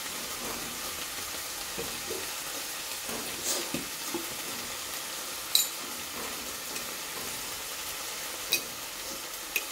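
A tuna, onion and tomato mixture sizzling steadily in a non-stick frying pan over a gas flame, with a few sharp clicks now and then.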